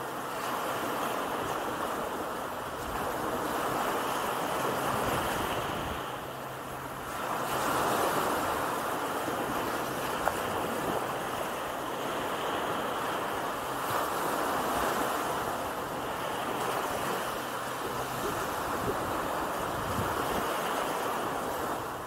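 Small Gulf of Mexico waves washing onto a flat sandy beach. The surf swells and eases every few seconds.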